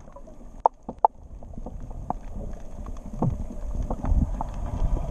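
Underwater ambience recorded on a camera below the surface: a low rumble with scattered clicks and pops, growing louder toward the end.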